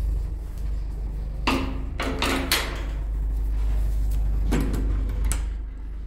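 Keys rattling and clicking in a door lock and a wooden front door being unlocked and opened, several sharp clicks and knocks over a steady low rumble.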